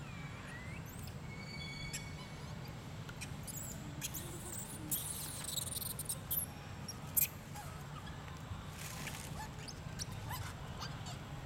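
Short high squeaks and chirps, rustling in leaf litter as a young macaque scrambles over stones, and scattered clicks, the loudest a sharp click about seven seconds in, over a steady low hum.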